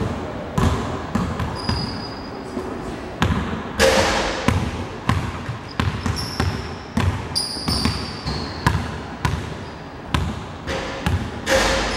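Basketball dribbled on a hardwood gym floor, about two bounces a second, each echoing in the large hall, with short high sneaker squeaks on the floor now and then.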